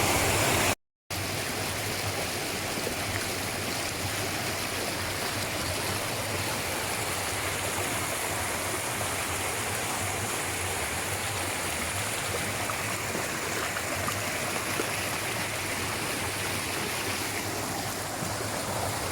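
Steady rush of a mountain stream running over rocks, broken by a moment of silence about a second in.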